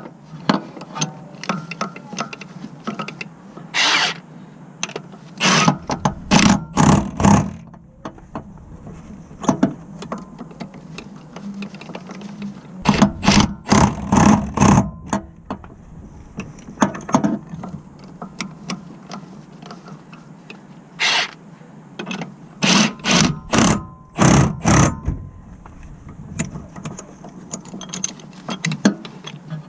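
Tools at work on a car during a clutch job: runs of sharp clicks and knocks in quick succession, coming in groups several seconds apart.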